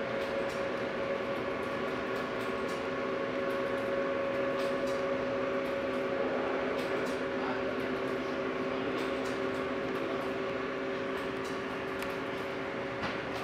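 Lionel O-gauge model freight train rolling past on its track: a steady hum of several fixed tones over a rolling rumble, with scattered light clicks from the wheels.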